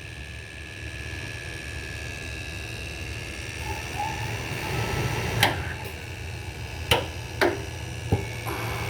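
Steady low electrical hum with a faint steady high whine over it, broken by four sharp clicks in the second half.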